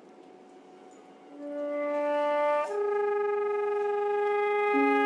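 Contemporary chamber music for flute, voice, viola and harp. After a brief hush, long held notes enter one after another and overlap, with a lower note joining near the end.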